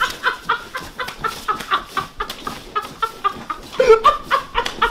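A man laughing hysterically in rapid high-pitched bursts, about four or five a second.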